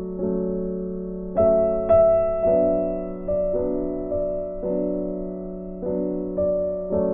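Background piano music: slow chords struck one after another, each left to fade, with a brighter high note standing out about a second and a half in.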